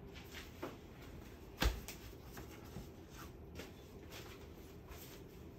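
Faint taps and clicks of tableware being handled, with one louder knock about a second and a half in.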